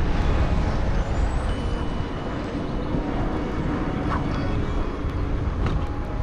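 Wind rushing over the microphone and tyre noise from a road bicycle riding along asphalt, a steady low rumble.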